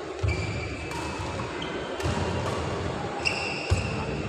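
Badminton rally: several sharp cracks of rackets striking the shuttlecock, with short high squeaks of players' shoes on the synthetic court mat between the hits. The loudest crack comes near the end, as the rally finishes.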